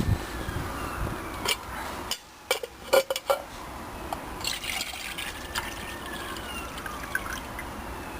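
Water being poured into a metal billy can, filling it, with a few sharp knocks and clicks between about one and a half and three seconds in.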